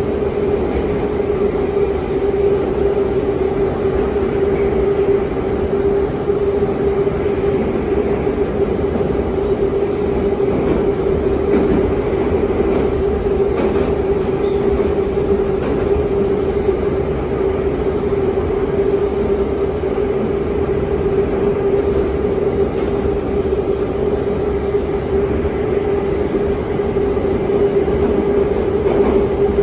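81-717/714 metro train running at steady speed through a tunnel, heard from inside the car: continuous rumble of wheels on rail with a steady hum over it.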